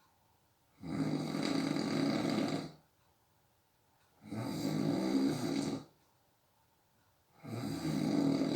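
A person snoring in sleep: three snores about three seconds apart, each lasting one and a half to two seconds, with quiet gaps between them.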